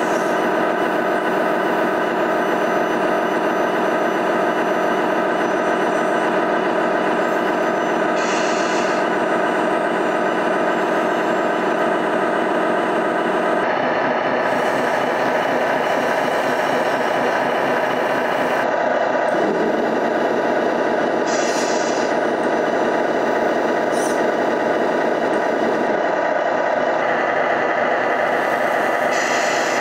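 Simulated diesel truck engine idling, played through an RC truck's electronic sound unit, with its tone changing a few times. A few short hisses come in now and then.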